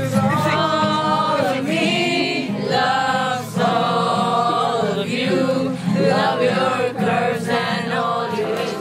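A group of voices singing a song together.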